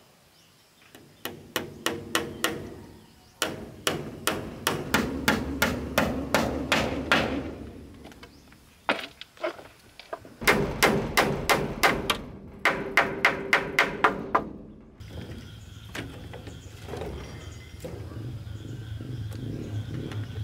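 Hammer driving nails into wooden boards: four quick runs of blows, several strikes a second, with short pauses between. The hammering stops about fifteen seconds in, leaving a faint steady hum.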